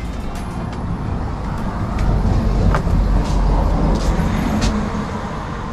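Low rumble of a road vehicle passing, swelling about two seconds in and easing off near the end.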